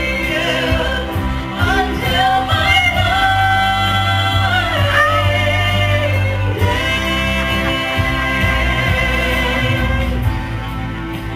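Musical-theatre song performed live: a singer holds long, wavering notes over band accompaniment with a steady bass line.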